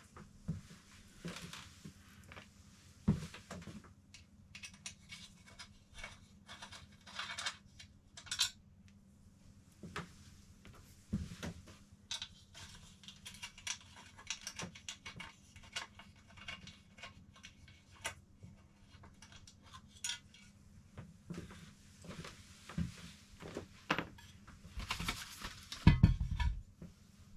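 Small irregular metal clicks, clinks and rattles of hand tools and screws as a motorcycle windshield is unbolted by hand, with a few louder knocks and bumps near the end.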